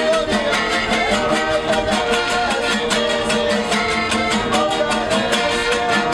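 Two acoustic guitars played live, strummed in a steady quick rhythm under sustained melody notes.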